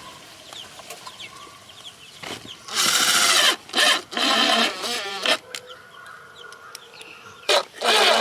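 Cordless drill/driver running in short bursts, driving screws to fix a mounting bracket, several times around the middle and again near the end, with chickens clucking in the background.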